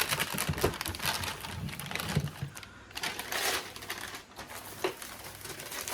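Packaging rustling and crinkling, mixed with irregular clicks and clatter as parts and wrapping are handled on a workbench.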